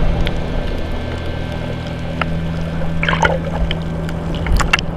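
Muffled underwater water noise from a camera held below the surface, with short bubbling, crackling bursts about three seconds in and again near the end.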